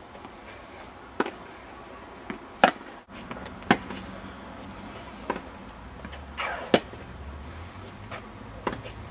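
Tennis balls being struck with rackets in a practice rally: about six sharp, ringing hits, one every second or two, with fainter ball bounces and footsteps between them.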